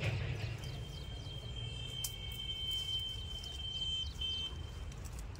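Leafy mangrove shrub branches rustling and cracking as they are pulled and broken off by hand, with one sharp snap about two seconds in, over a low rumble of wind on the microphone. A thin, steady high tone from an unseen source is held for about four seconds alongside it.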